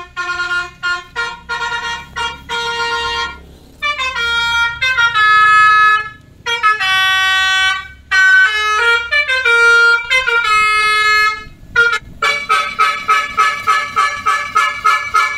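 Electric basuri-type musical truck horn (60 W) playing a melody of held and short notes that step between pitches. About twelve seconds in it switches to a fast repeating pulsed pattern of about three pulses a second.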